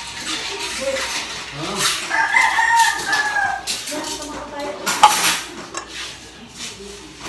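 Metal spoon clinking and scraping against a tin can as canned tuna is pressed to drain its oil, with the sharpest clink about five seconds in. A rooster crows once, a long call lasting from about two seconds in to nearly four.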